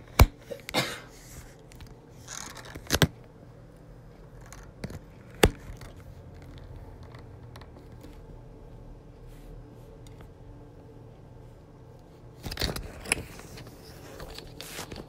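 Handling noise from a smartphone being gripped and moved about by hand: sharp clicks and knocks on the phone's body, several in the first few seconds, one at about five seconds and a cluster near the end, with rubbing and scraping between.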